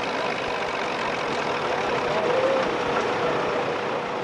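Farm stock tractor's engine running under full load as it drags a weight-transfer pulling sled, a steady, noisy drone that swells slightly in the middle.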